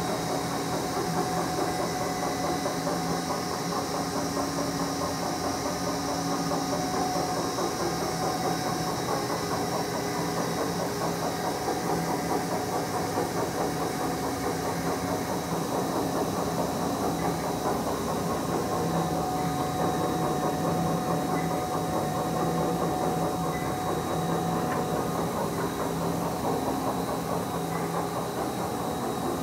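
Haas TL-3B CNC lathe's gear-head spindle running at a steady speed, its 25-inch four-jaw chuck spinning with no workpiece. It makes a steady mechanical whine of several held tones over a light hiss.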